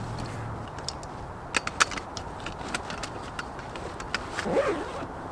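Scattered light clicks and small knocks of camping gear being handled and packed, with a quick run of sharper clicks about one and a half to two seconds in.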